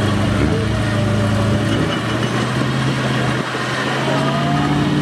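Off-road 4x4 vehicle's engine running steadily, its note shifting about two seconds in.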